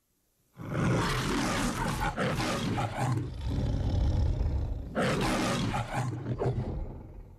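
The MGM lion's trademark roar: a lion roaring twice. The first long roar begins about half a second in and the second about five seconds in, with lower rumbling between, and it dies away near the end.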